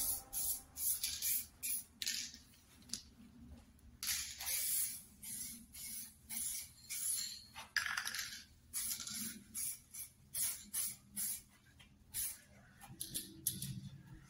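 Aerosol spray can of clear varnish hissing in many short, irregular bursts with brief pauses between, a few held for about half a second: a second coat of varnish going onto a bike frame.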